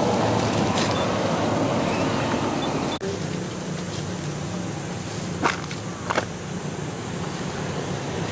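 Steady outdoor background noise that drops in level at a cut about three seconds in, with a few sharp clicks a little past the middle.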